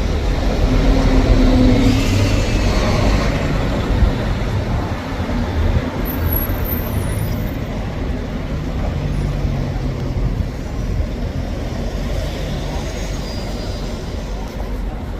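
Steady road-traffic rumble of passing vehicles, with a low engine hum in the first half.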